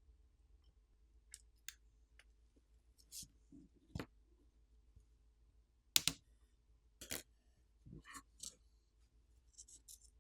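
Faint, scattered clicks and taps of a small screwdriver and metal parts as the Phillips screws holding the phone's main board are removed. The sharpest click comes about six seconds in.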